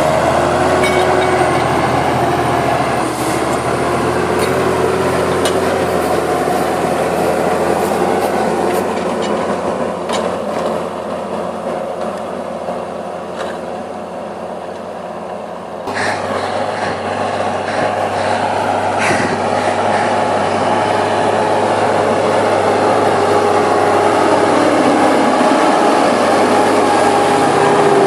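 Deutz-Fahr Agroton 150 tractor engine running steadily while ploughing, a constant drone with a pitched whine over it. The sound shifts suddenly a little past halfway, then slowly grows louder.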